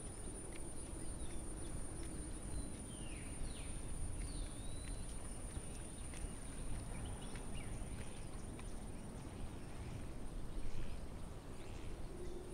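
Outdoor ambience: a low steady rumble with a few short bird chirps about three to five seconds in, and scattered faint clicks.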